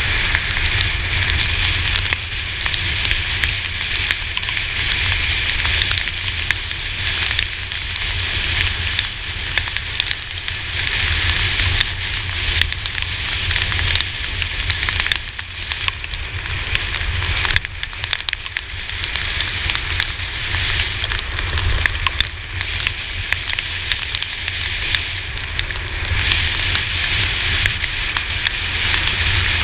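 Heavy rain striking the GoPro camera as a dense crackling patter, over a steady low rumble from the moving scooter.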